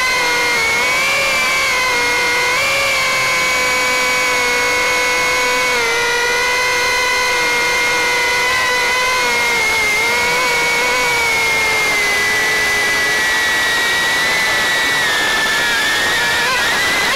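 Multirotor drone's electric motors and propellers running with a steady high whine, heard from the onboard camera; the pitch wavers slightly as it climbs and dips and wobbles near the end.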